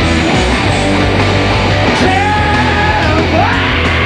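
Live rock band playing loud: distorted electric guitars, bass and drums, with a shouted male lead vocal coming in about two seconds in, its pitch sliding up near the end.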